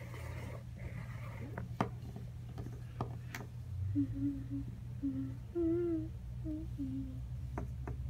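A person humming a short tune in several brief notes, about halfway through, with a few light clicks of small plastic toy figures being set down on a wooden tabletop.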